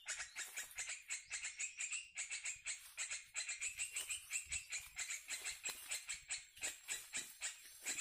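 A rapid, even train of short high chirping calls, about five a second, without a break.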